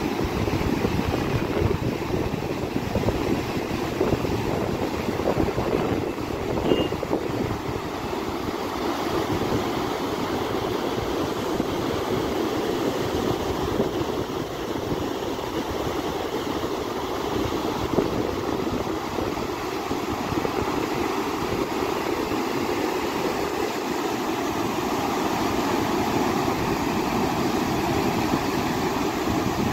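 Flowing water rushing steadily and evenly, with no pauses.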